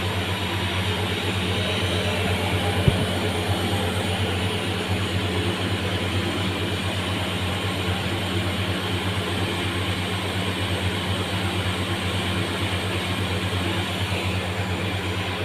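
CNC grinding machine running steadily with a loud electric motor hum, and a single sharp click about three seconds in.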